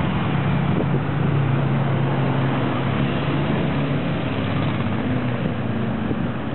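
Motorcycles riding past on a mountain pass road, the nearest one's engine giving a steady note as it passes close by and fading near the end.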